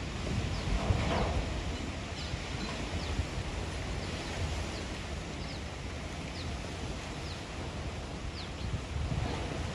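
Gusty storm wind rustling tree leaves and buffeting the microphone with a low rumble. A bird gives short high chirps about once a second.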